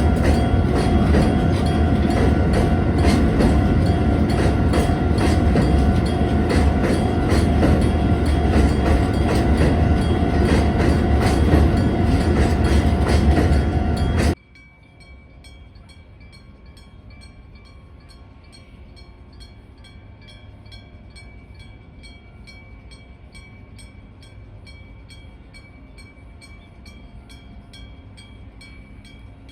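Freight train on the Nagoya Rinkai Railway running past, a loud rolling and engine noise with an even beat. It cuts off suddenly about halfway through, leaving only a faint steady high tone with faint regular ticks.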